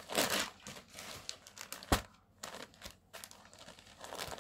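Rustling of folded cotton sarees and paper number cards as they are handled and moved, with one sharp tap about two seconds in.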